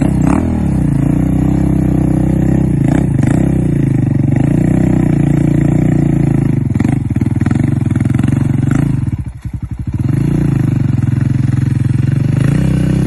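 Lightweight trail motorcycle's engine revving up and down over and over while the bike is bogged in a deep muddy rut. About nine seconds in the revs sag to a slow, uneven putter, then pick back up.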